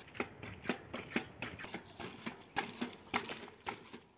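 Coil-spring bicycle suspension fork being pumped up and down, giving sharp knocks roughly twice a second as it compresses and rebounds. This tests whether the knock on rebound remains now that welded springs stand in for the rubber bumpers.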